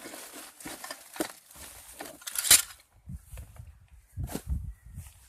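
A cardboard box being opened and a hand lever winch tipped out of it: packaging rustles and crackles, loudest about two and a half seconds in, then dull thumps in the second half as the heavy winch comes out.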